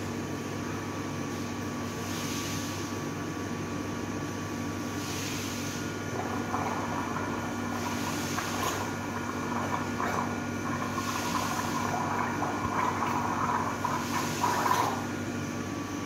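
A person gargling warm salt water in the back of the throat. The bubbling gargle grows louder from about six seconds in.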